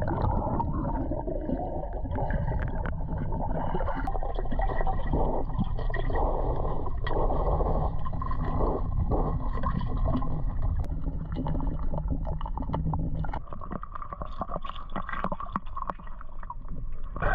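Muffled underwater sound of a swimmer in a pool, heard through a submerged camera: a steady low rumble and gurgling of water stirred by kicking and arm strokes, with small clicks scattered through it.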